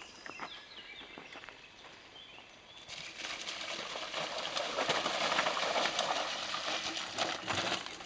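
Mountain bike crossing a shallow, rocky stream, its tyres splashing and spraying water; the rushing splash grows louder from about three seconds in as the rider comes closer.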